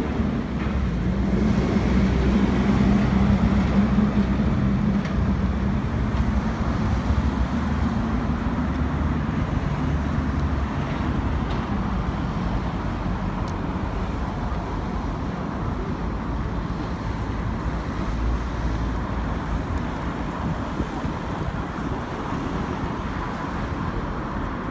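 Road traffic running steadily, with one vehicle's engine hum swelling loudest a few seconds in and fading over the next several seconds as it passes.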